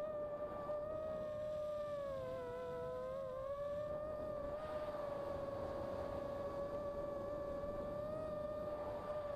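Motors and propellers of a 285 mm FPV quadcopter, heard from its onboard camera, giving a steady whine over a hiss. About two seconds in, the pitch dips and splits into two tones for a second or so as the motors change speed, then settles.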